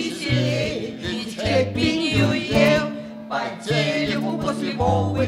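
A song performed live: two acoustic guitars accompanying several voices singing together.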